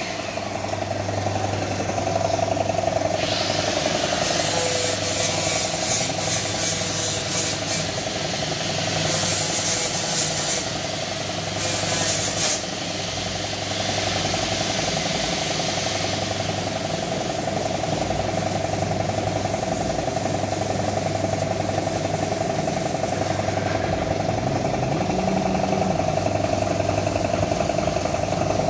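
Compressed-air paint spray gun hissing in a few short bursts of one to two seconds in the first half, over the steady hum of a running air compressor.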